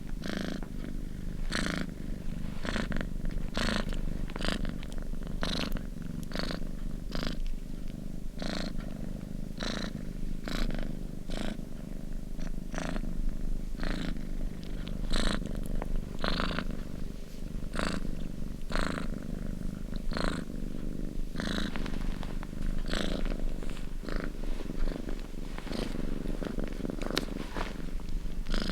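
Domestic cat purring steadily up close, a continuous low rumble with a breathy rush at each breath, about once a second.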